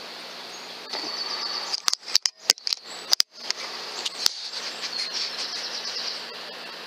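Small birds chirping in quick, high trills over a steady hiss, twice, with a cluster of sharp clicks and brief drop-outs between the two runs.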